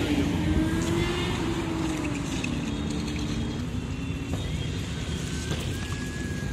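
Road traffic passing: a steady engine rumble, with one vehicle's engine note sliding down in pitch over the first few seconds as it goes by.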